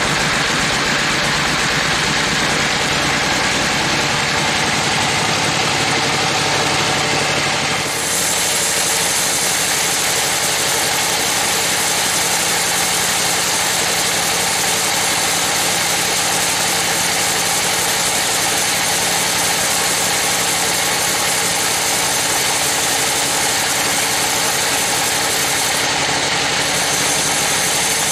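Log band sawmill running and sawing through a beam of rain-tree (trembesi) wood: a steady machine drone, with a brighter, higher hiss joining about eight seconds in as the blade cuts.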